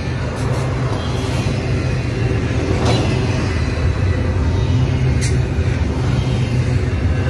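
Norfolk Southern double-stack intermodal train's well cars rolling past: a steady rumble of steel wheels on rail, with brief sharper sounds about three seconds in and again about five seconds in.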